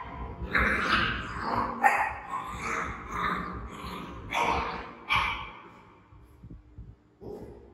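A puppy barking and yipping in a string of short bursts over the first five seconds or so, then dying away.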